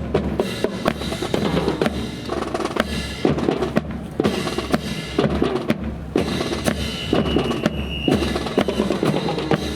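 Marching drum corps playing: snare and bass drums beating a fast, steady rhythm.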